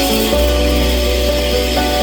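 Background music: held synth-like notes over a steady bass line that changes note a couple of times.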